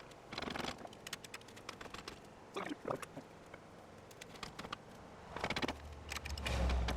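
Scattered metallic clicks, rattles and short scrapes of engine-removal work on a Cummins 4BT diesel hanging from an engine hoist, with a louder low rumble near the end.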